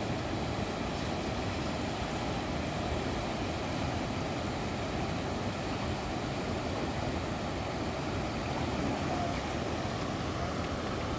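Steady rushing of a fast-flowing river, an unbroken even noise.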